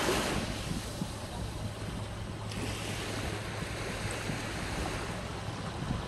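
Small sea waves breaking and washing up over sand in the shallows, a louder foamy rush at the start, then another rush about two and a half seconds in. Wind rumbles on the microphone underneath.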